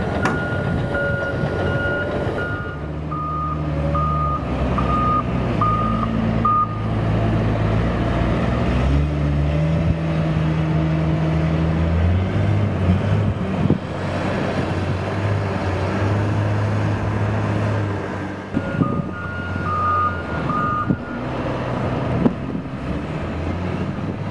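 Doosan DL200 wheel loader's diesel engine running under work, its pitch rising and falling as it drives and loads. Its reversing alarm beeps in short pulses during the first several seconds and again about three-quarters of the way through.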